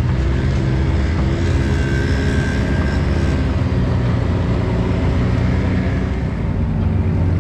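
Can-Am Maverick X3 side-by-side's engine running steadily at an even pace while under way, over a broad rush of driving noise.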